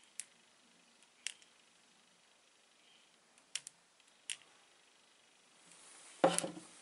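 A small neodymium magnet hanging on a strip clicking lightly against a hand-held stone as it is drawn to it: about five sharp clicks, two of them close together. Near the end comes a louder knock with some rustling from handling.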